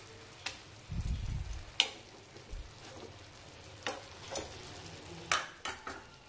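Marinated chicken pieces sizzling in their own juices in a frying pan while a steel spatula turns them. Several sharp clicks and scrapes of the spatula on the pan stand out over the steady sizzle.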